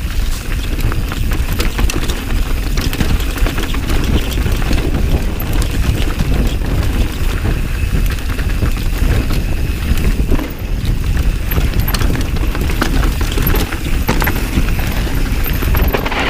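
Mountain bike riding down a rough trail: tyres rolling over dirt and rocks, with a constant stream of rattles and knocks from the bike over a steady low rumble.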